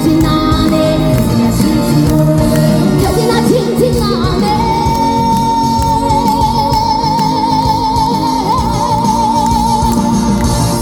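Live trot song played loud through a festival PA: a band backing with a female lead vocal. About four seconds in, one long high note is held with a wavering vibrato until near the end.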